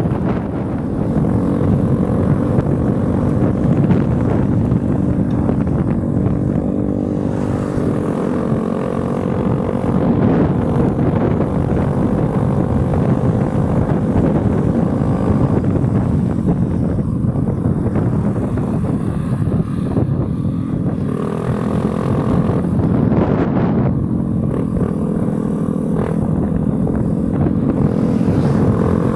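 Motor scooter engine running at road speed, with wind rushing over the microphone. The engine note shifts up and down a little at times.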